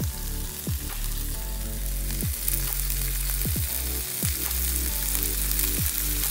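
Chopped ham sizzling in a hot nonstick frying pan: a steady, even crackling hiss. Background music plays underneath, with low notes that slide downward every second or so.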